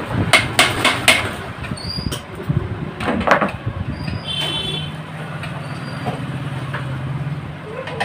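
Several sharp knocks and clicks of a circuit board and soldering iron being handled, most of them in the first second or so and one more about three seconds in. A steady low hum runs through the second half.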